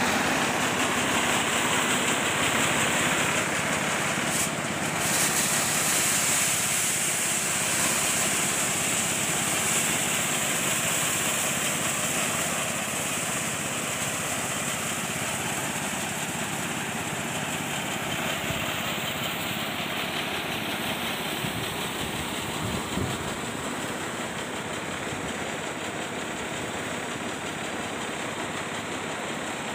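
Rice thresher with a shaking sieve and fan running steadily: a continuous mechanical noise that slowly gets quieter.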